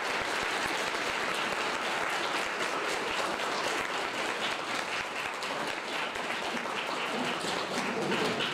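Applause from a room full of people, many hands clapping at once at a steady level, joined by the students on stage clapping.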